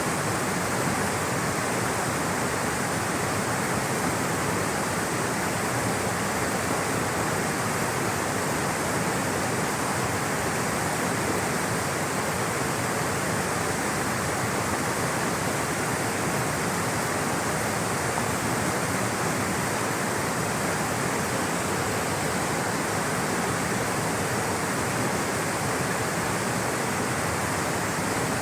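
Rushing water flowing in a steady, unbroken hiss.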